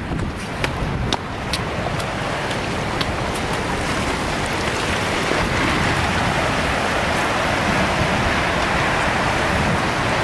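Tsunami floodwater rushing through a town: a steady roar of surging, churning water that grows a little louder about halfway through, with a few sharp cracks in the first three seconds.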